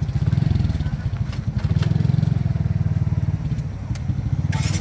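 Motorcycle engine idling steadily, a low, fast, even putter.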